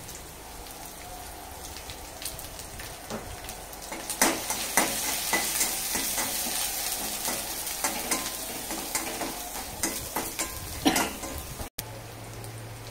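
Peanuts, coconut pieces and green chillies sizzling in hot oil in a metal kadhai, with a metal spatula scraping and clinking against the pan as they are stirred. The sizzle and stirring get louder about four seconds in.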